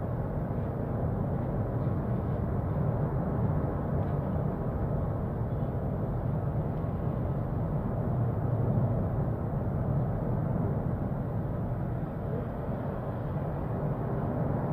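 The erupting Cumbre Vieja volcano, its vent fountaining lava, heard as a steady low rumble with no separate blasts.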